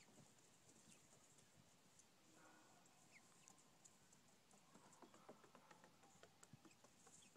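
Near silence with faint, scattered light taps of chickens pecking bread crumbs off a wooden deck. The taps come more often from about the middle on, with a couple of faint high chirps.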